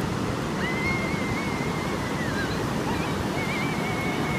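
Atlantic Ocean surf washing steadily on the beach, with wind on the microphone. A thin, high, wavering tone sounds over it twice, first for about two seconds and then again near the end.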